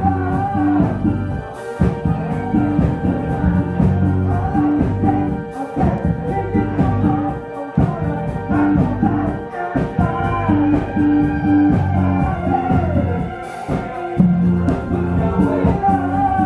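Live rock band playing loudly: electric guitars and a drum kit, with a woman singing the melody over them.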